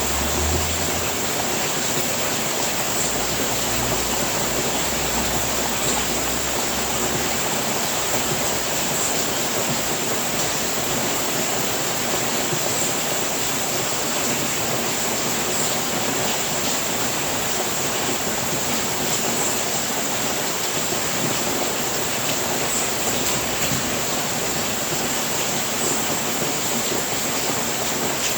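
Steady heavy rainfall, a dense even hiss of many drops with no change in strength. A faint low rumble sits beneath it in the first several seconds.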